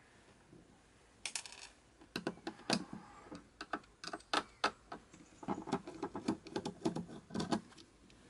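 Screwdriver and small screws clicking and tapping against the metal shell of an electric airsoft gun's gearbox as the case screws are worked out, a run of light, irregular clicks starting about a second in.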